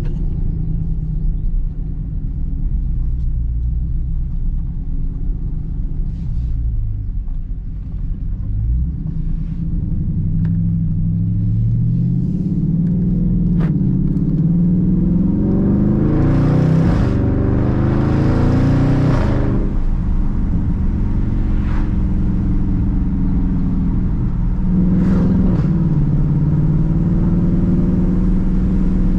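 The Dodge Charger Daytona 392's 6.4-litre HEMI V8 is accelerating hard, heard from inside the cabin. Its engine note climbs in pitch to its loudest pull a little past the middle, drops at an upshift, then pulls again near the end.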